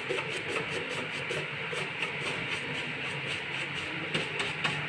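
Stiff-bristled distressing brush rubbing wax into a wooden tabletop in quick, regular strokes, a steady scratchy swishing.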